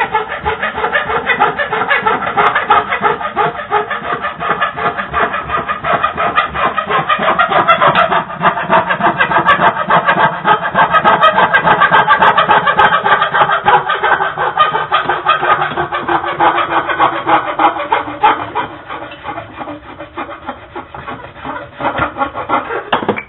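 Hand saw cutting across a thin strip of hard wood in rapid back-and-forth strokes. The strokes grow quieter over the last few seconds.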